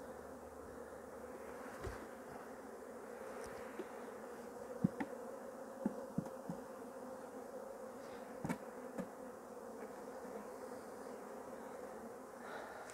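Steady buzzing hum of a large mass of honeybees shaken out of their hive onto a sheet, with a few light knocks now and then.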